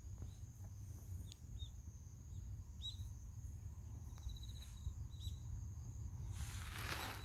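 Faint outdoor ambience: a steady high insect drone, with a few short bird chirps and a brief trill in the middle. A low rumble runs underneath, and there is a shuffling rustle near the end.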